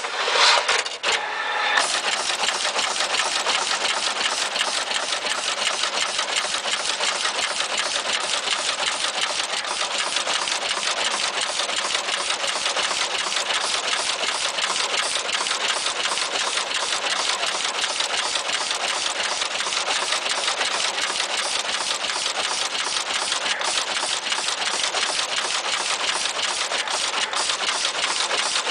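Automatic through-hole component insertion machine for PCB assembly running, a fast, steady mechanical clatter of rapid clicks. There is a louder burst of noise in the first second or two.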